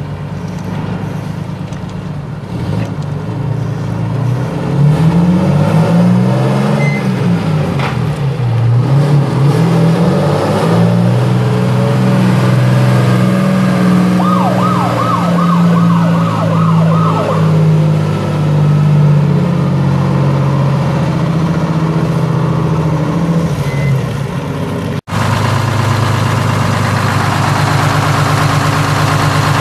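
1975 American LaFrance fire truck's Detroit Diesel six-cylinder diesel engine pulling the truck along, its pitch rising and falling through several gear changes, then holding steady as the truck passes close, with a brief warbling siren burst of about three seconds midway. After a sudden cut near the end, the same diesel engine is idling steadily.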